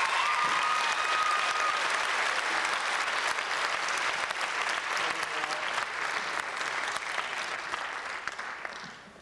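Audience applauding, the clapping thinning out and dying away about nine seconds in, with one long whistle over it near the start.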